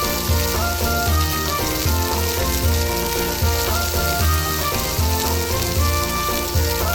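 Background music with a steady beat and a pulsing bass line, over a steady sizzling hiss.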